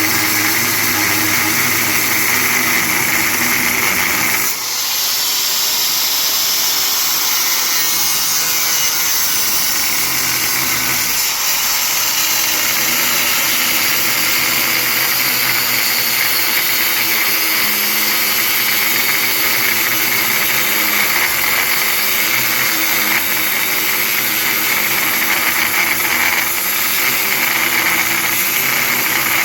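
Angle grinder cutting into the metal casing of a large electric motor: a loud, continuous high-pitched grinding whine, with a brief dip about four and a half seconds in.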